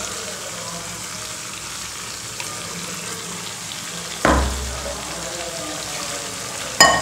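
Mushroom and tomato masala sizzling steadily in a pan on the stove, with ground coconut paste just poured in. A dull knock about four seconds in and a sharp metallic clink near the end.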